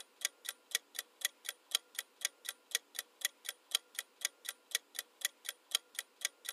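Countdown-timer ticking sound effect: a clock-like tick repeating steadily at about four ticks a second.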